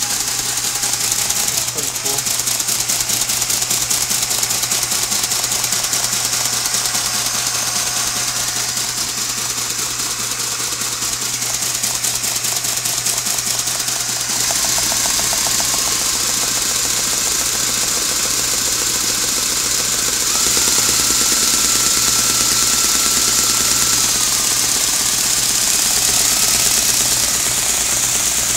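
Plastic K'nex model inline four-cylinder DOHC engine spun by an electric drill: a fast, continuous clatter of its valves and cams over the drill's steady whir, sounding like a car engine just started up cold. It gets louder in two steps, about halfway through and again about two-thirds in.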